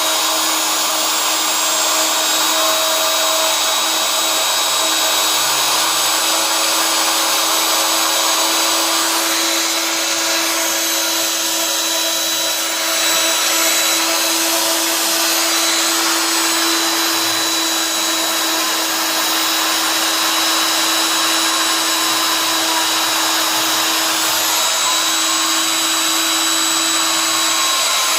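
CNC machine running steadily: a constant whine over a loud, even mechanical noise.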